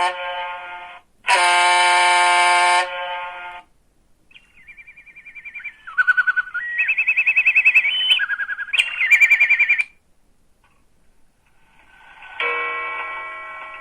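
A Sagem MyX-6 mobile phone playing a run of its ringtones through its loudspeaker, in electronic tones. A held tone sounds loudly about a second in. Then comes a fast warbling tune that steps between pitches and grows louder, followed by a short pause and another ringtone starting near the end.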